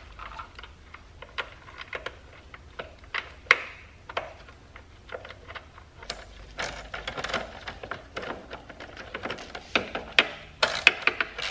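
Small metal clicks and taps as the battery hold-down nut is fitted by hand. From about six seconds in come quick runs of clicking from a quarter-inch drive ratchet on an extension, tightening the hold-down bolt.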